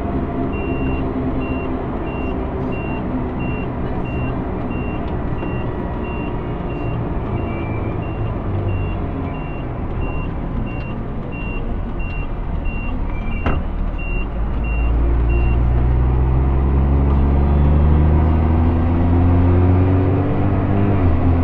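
JCB Fastrac 3230 Xtra tractor engine and drivetrain heard from inside the cab, easing off as it slows, then rising steadily in pitch as it accelerates in the last third. Over it a cab warning tone beeps about twice a second, stopping about fifteen seconds in, with a single sharp click shortly before.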